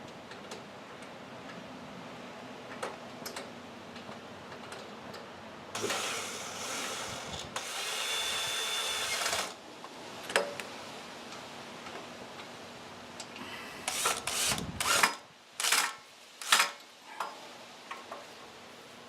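Cordless drill-driver running for about three seconds, then several short bursts, driving in screws while a new carburetor is fastened on.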